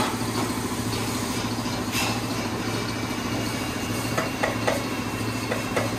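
Steady low hum of a running machine in the shop, with a few light metallic clicks from hand tools working under the car about two seconds in and again near the end.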